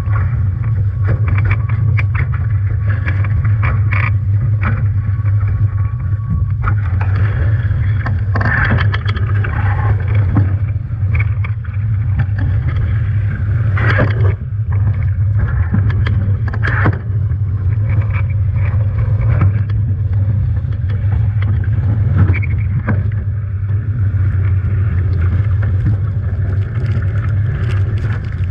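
Nacra 17 catamaran under sail, heard on board: a steady low rumble of rushing water and wind, with scattered slaps and knocks, a few louder ones in the middle.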